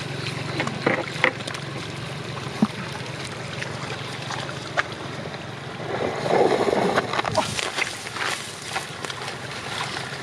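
Water splashing and sloshing with scattered knocks over a steady low hum and wind-like noise, with a louder stretch of splashing about six seconds in followed by a run of quick knocks and clicks.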